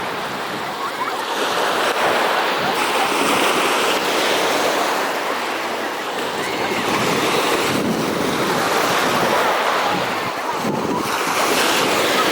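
Sea waves washing in surf, with wind buffeting the microphone; the noise swells and eases every few seconds.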